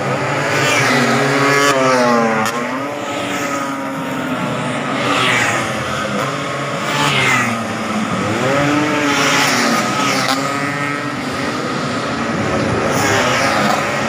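Racing Vespa-style scooters with two-stroke engines, revving hard one after another. Their pitch climbs, falls and climbs again several times as riders work through the gears and pass by.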